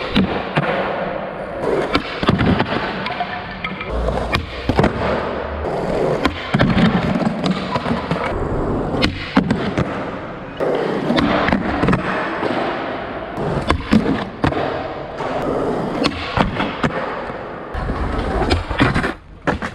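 Skateboard wheels rolling on concrete, with repeated sharp clacks from the tail popping and the board landing and hitting ledges.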